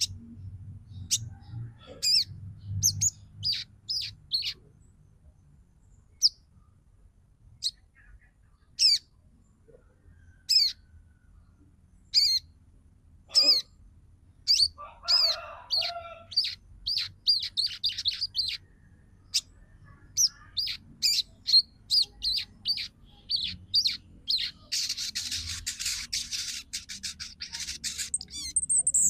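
Female sogon calling: scattered short, high chirps that come thicker and faster toward the end, turning into a rapid chattering run in the last few seconds. This is the female's twittering call that draws males and rouses them to sing.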